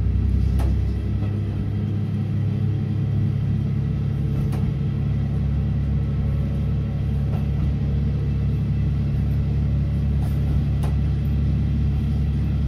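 Diesel railcar running along the track, heard from the cab: a steady low engine drone with a few light clicks from the running gear.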